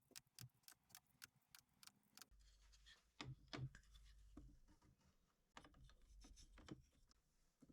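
Faint, scattered clicks and taps of small stainless steel nuts being handled and set down one by one while a pattern is laid out.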